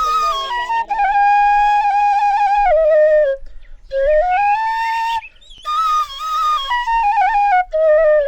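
Bansuri (Nepali bamboo flute) playing a slow melody of long held notes that step up and down, with short breaks for breath about three and a half and five and a half seconds in.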